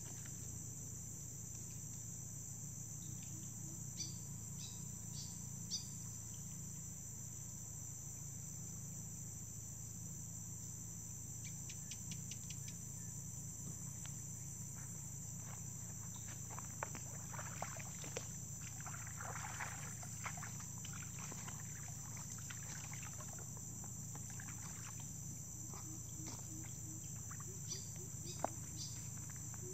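Steady high-pitched chorus of crickets and other insects, with a low steady hum underneath. Scattered light clicks and taps come and go, most around the middle and again near the end.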